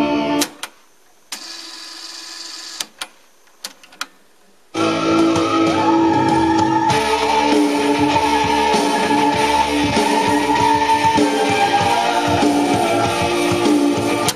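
Guitar music playing back from a cassette on the deck cuts off about half a second in as the Stop key is pressed. A few sharp clicks of the deck's transport keys follow over the next few seconds. The music starts again about five seconds in and plays until it cuts off at the very end.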